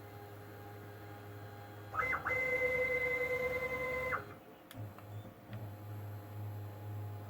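Stepper motor jogging an axis of a CNC-converted PM-25MV milling machine: a steady whine that starts about two seconds in and stops sharply about two seconds later, over a low steady hum.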